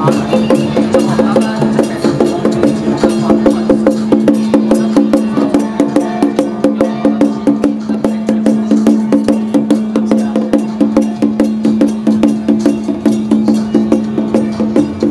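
Traditional Taiwanese temple-procession music: fast, even percussion strikes, about five a second, with clacks like a wood block, over one steady held tone.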